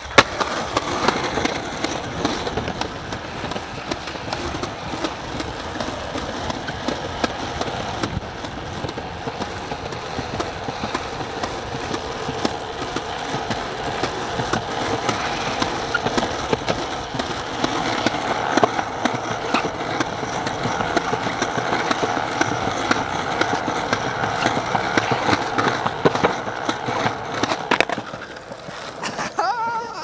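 Skateboard wheels rolling on concrete and the trucks grinding along a painted concrete curb, with sharp clacks from pops and landings. The noise drops off near the end.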